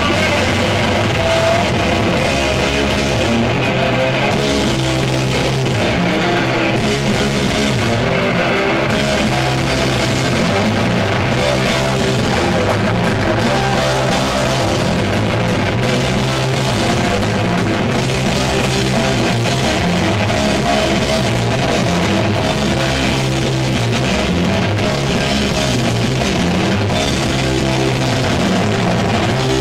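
Heavy metal band playing live and loud: distorted electric guitar riffing over bass guitar and drums, in a dense, unbroken wall of sound.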